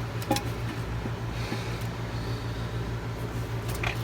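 An exhaust manifold for a Detroit 6V92 being slid down into place over its gasket and brackets, with a sharp metal clink shortly after the start and another at the end, over a steady low hum.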